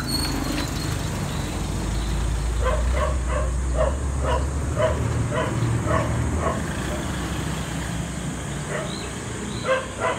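A dog yipping repeatedly, short calls about two or three a second for several seconds, then a couple more near the end, over a low steady rumble.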